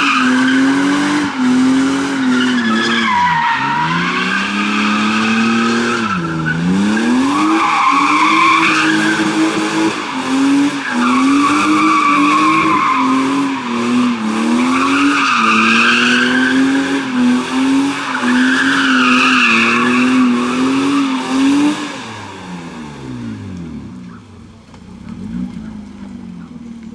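BMW E30 doing a smoky burnout: the engine is held at high revs while the rear tyres squeal in a wavering pitch, with the revs dipping briefly twice early on. About 22 seconds in, the squeal stops and the engine falls away to a lower, quieter note.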